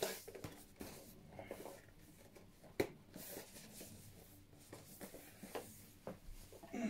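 Faint rustling and light clicks of a cardboard scope box and its packaging being handled, with one sharper click about three seconds in.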